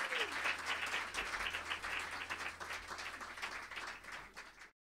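Audience applauding, dense clapping that gradually thins and then cuts off suddenly near the end.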